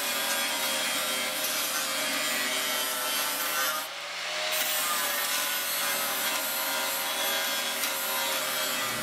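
Handheld electric grinder with a grinding wheel, dressing down fresh weld beads on a steel car-body panel: a steady motor whine under the hiss of the wheel biting the metal. About four seconds in, the wheel lifts off the metal for a moment and the whine rises slightly, then it bites again.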